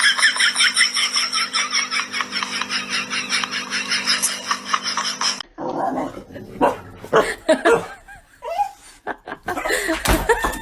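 A pet animal's fast, even run of calls, about six a second, that cuts off abruptly about five seconds in. Scattered, irregular sounds follow.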